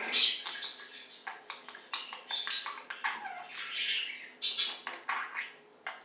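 Budgerigars chattering and warbling: a fast, uneven run of clicks, chirps and squawks.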